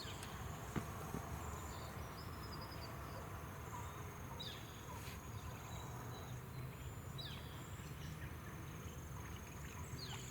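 Outdoor ambience: a steady high-pitched insect trill, with a few short falling bird calls over it and a low steady rumble beneath.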